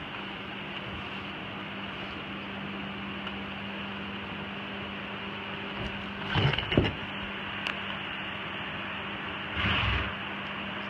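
Electric box fan running with a steady hum and rush of air. About six seconds in come a few close knocks and rubs, and near the end a short breathy burst.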